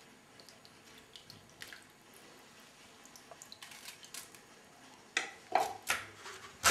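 Small kitchen knife cutting and trimming a raw artichoke by hand: faint light snicks at first, then a few louder short cuts about five seconds in.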